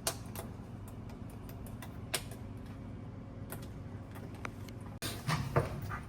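Scattered light clicks and knocks of hands and tools handling metal parts of an HVAC unit, with a short cluster of handling noise near the end, over a low steady hum.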